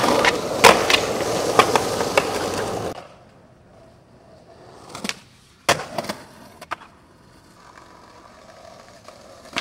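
Skateboard wheels rolling loudly over asphalt, with several sharp clacks from the board. About three seconds in it cuts off abruptly to a much quieter stretch broken by a few separate hard clacks of a skateboard hitting the ground.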